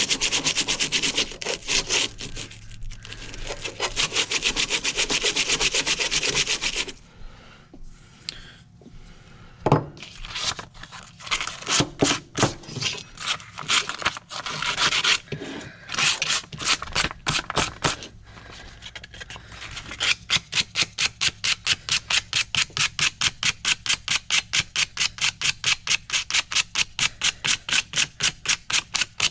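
80-grit sandpaper rubbed back and forth by hand on the steel of a Ridgid 14 pipe wrench. The strokes run fast and close together at first, turn irregular through the middle, and settle into an even rhythm of about five strokes a second for the last several seconds.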